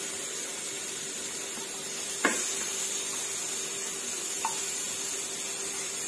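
Raw chicken breast pieces sizzling in a hot double-sided grill pan on a gas stove, a steady hiss, as they are laid in to grill. A single sharp knock sounds about two seconds in, and a faint tick near the end.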